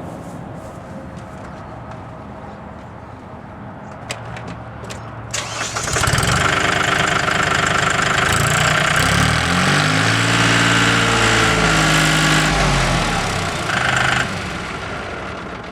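Mahindra utility tractor's diesel engine: after a few clicks it comes up loud about five seconds in, its pitch rising and falling, then drops back about fourteen seconds in.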